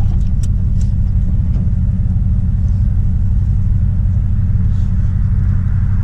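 A 1999 Dodge pickup truck driving, its engine and road noise a steady low rumble heard from inside the cab, with a few light clicks in the first second.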